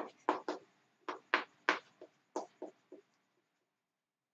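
Chalk writing on a chalkboard: a quick run of about ten short strokes, stopping about three seconds in.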